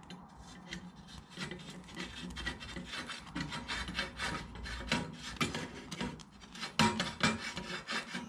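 Screw being driven into a wall plug to fix a saddle: a rasping, scraping grind of the screw turning in, made of many quick irregular strokes, with a couple of sharper knocks near the end.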